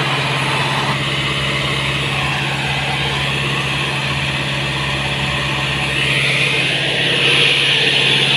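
Yanmar three-cylinder diesel engine running steadily, driving a water pump that has been primed and is pumping water for irrigation. A hiss grows louder about six seconds in.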